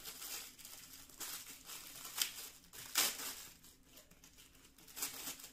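Plastic packaging crinkling and rustling as a mini flexible tripod is unwrapped and handled, with two sharper crackles about two and three seconds in.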